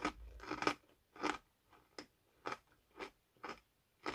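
Crunchy caramel-filled cereal pops being chewed, with a crisp crunch about twice a second.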